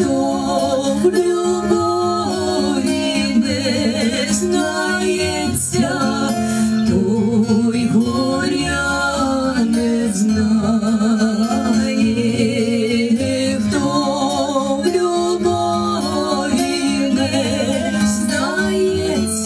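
Two women singing a folk-style song as a duet through microphones, their held notes wavering with vibrato, over a steady instrumental accompaniment.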